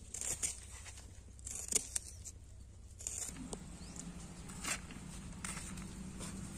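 Kitchen knife slicing through a red onion onto a banana leaf: a few separate crisp cuts. A low steady hum comes in about three seconds in.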